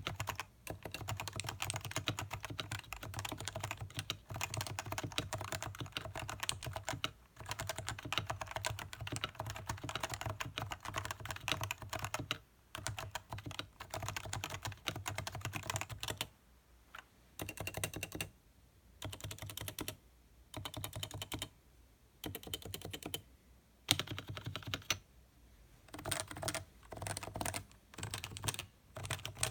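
Typing on a stock Leopold FC660C keyboard with Topre electrostatic capacitive switches: fast, continuous keystrokes for about the first half, then shorter bursts of typing broken by brief pauses.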